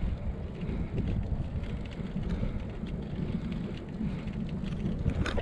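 Wind rushing over the microphone of a camera riding along on a moving bicycle, a steady low rumble with faint ticks, as the bike rolls along an asphalt path.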